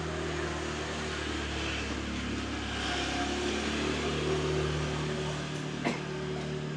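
Steady hum of an idling engine with a low, even pitch. Near the end comes a single sharp click of a tuft of hair being pulled taut and cracked at the scalp.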